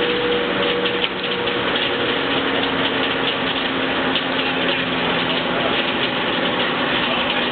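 Rack saw-bench's circular saw and its drive running free without cutting: a steady mechanical whirr with a faint hum.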